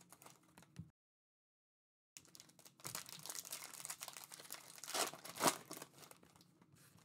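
Foil wrappers of Panini Mosaic basketball card packs crinkling and tearing as the packs are ripped open by hand, with a few louder rips about five seconds in. The sound cuts out completely for about a second near the start.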